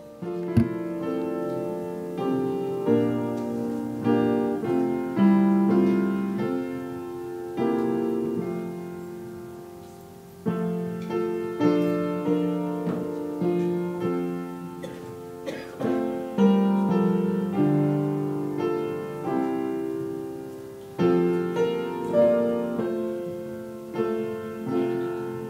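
Solo piano playing a slow, gentle piece of chords and single melody notes, each note striking and fading away, as offertory music during the collection.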